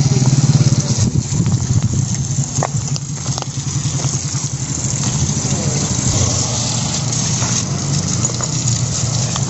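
An engine idling steadily with a low, fast, even throb. A couple of faint knocks come about two and a half and three seconds in.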